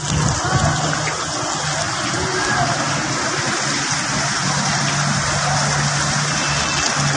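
Rain and floodwater on a flooded street, an even hiss of water, with a steady low hum underneath.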